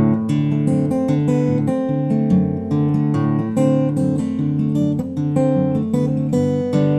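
Acoustic guitar strummed in a steady, even rhythm of chords, with no singing: an instrumental passage of the song.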